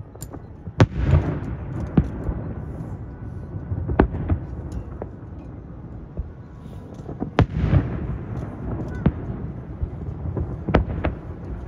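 Fireworks shells bursting in the sky: a string of about ten sharp bangs, the loudest about a second in and again near seven and a half seconds, each trailed by a low rolling echo.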